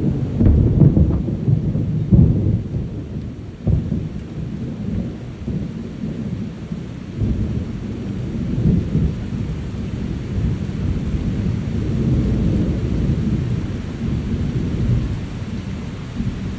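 Rainstorm with rolling thunder: a deep, uneven rumble over steady rain, loudest in the first couple of seconds, with a sharp crack just before four seconds in.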